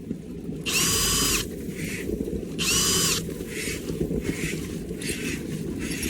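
Drill spinning a rotary whip brush through a dryer vent duct in two bursts of under a second each, its motor whine rising as it starts and dropping as it stops. Fainter short bursts of noise follow, over the steady hum of the vacuum pulling suction on the vent.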